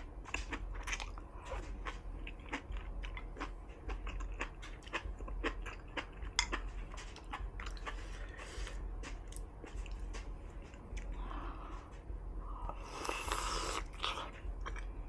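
Wet chewing and mouth smacking while eating soft tofu and vermicelli noodles from a hot pot, many small irregular clicks, with a louder hiss lasting about a second around thirteen seconds in.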